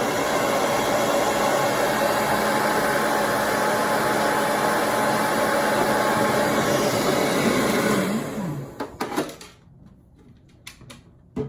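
Hair dryer blowing steadily, switched off about eight seconds in and running down, followed by a few light handling clicks.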